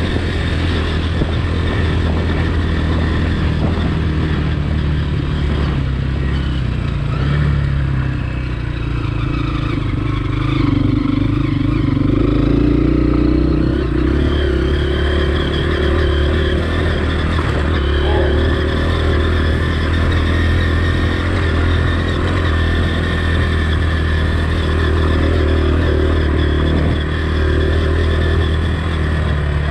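Honda CRF230F dirt bike's air-cooled single-cylinder four-stroke engine running on a trail ride, easing off about eight seconds in and then picking up again, with chassis clatter.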